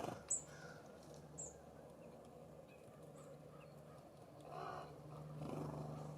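Faint bird calls at a feeder: a sharp tick with a short high chirp just after the start, another brief high chirp about a second later, and a lower, harsher call about four and a half seconds in, over a steady low hum.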